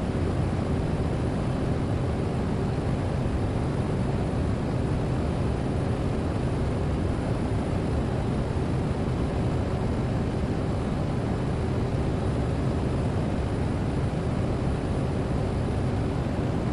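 Steady cabin drone of a Cessna Grand Caravan's single turboprop engine and propeller in flight, heard from inside the cockpit, deep and even with a faint steady hum.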